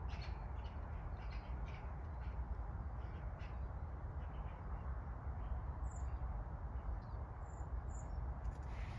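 Crows cawing faintly a few times, mostly in the first few seconds, with a few small high chirps later, over a steady low rumble.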